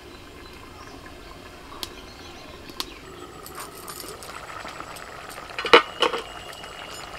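Metal lid lifted off an iron kadai and set down with a sharp clink about three-quarters of the way in, over the low bubbling of a vegetable curry simmering in the pan, with a few small clicks before it.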